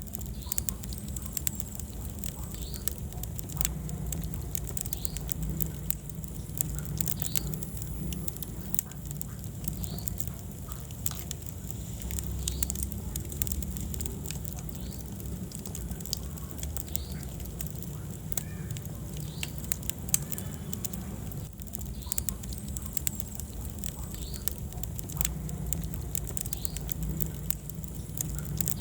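Wood fire burning in a fireplace, crackling with frequent sharp pops and snaps over a low steady rumble of the flames.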